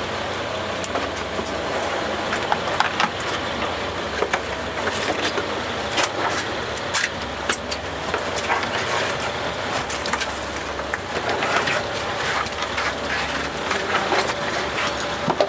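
Steady hum of a fishing boat's engine under wind and water noise, with scattered sharp clicks and knocks throughout.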